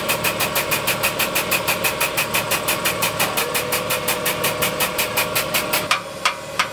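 Hydraulic pump of a guided-bend tester running with an even pulse, about six a second, while the ram works the bent weld coupon. It stops about six seconds in, followed by a few sharp clicks.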